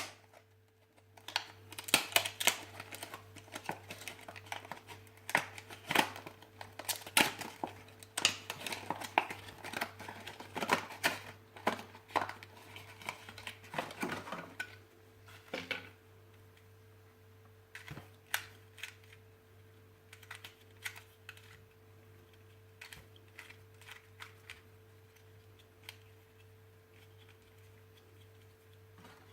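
Packaging being handled: quick clicks, taps and rustling, busy for about the first fifteen seconds, then only an occasional click. A steady low hum runs underneath.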